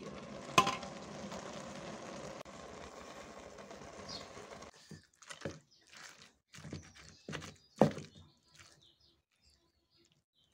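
A glass pot lid clinks sharply as it is lifted off a pot of rice and brinjals, followed by a steady hiss that cuts off suddenly. Then a masher knocks and scrapes in a steel bowl as boiled brinjal is mashed for bharta, with one sharp knock near the end.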